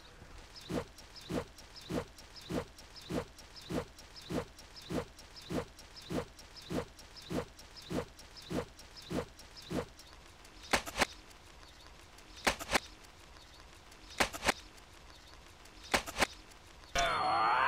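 Slow, even footsteps, about one every 0.6 s for around nine seconds, followed by four sharp double clicks spaced nearly two seconds apart. Near the end a loud, wavering cry from a man's voice starts abruptly.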